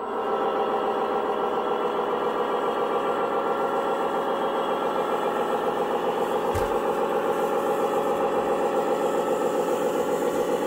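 RC scale truck's sound unit playing a simulated truck engine, running steadily with an even, rapid pulse. A brief low thump comes about two-thirds in.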